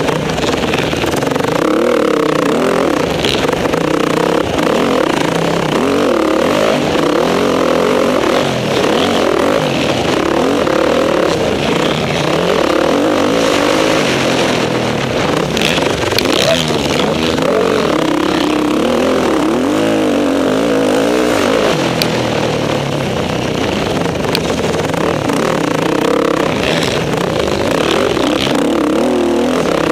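Motocross bike engine at race pace, heard close up from the bike itself, its pitch rising and falling again and again as the rider opens and closes the throttle through the corners and straights.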